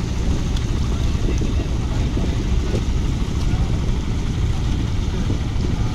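Fishing boat's engine running, a steady low rumble, with faint voices over it.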